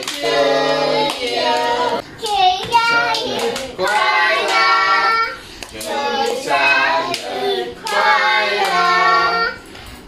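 Children's voices singing together in phrases, with hands clapping along: a family singing a birthday song.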